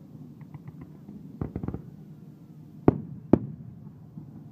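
Aerial fireworks shells exploding: a few faint crackles, then a short cluster of bangs about a second and a half in, and two sharp loud bangs about half a second apart around three seconds in.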